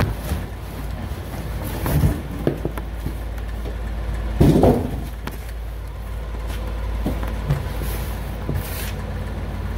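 Cardboard and plastic packaging being handled during an unboxing: a few short knocks and rustles, the loudest about four and a half seconds in, over a steady low hum.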